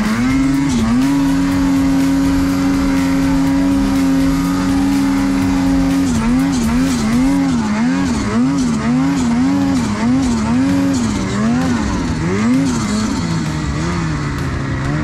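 Ski-Doo Summit 850's two-stroke engine running at high revs: steady for several seconds, then revs rising and falling quickly over and over as the throttle is worked, before settling again near the end.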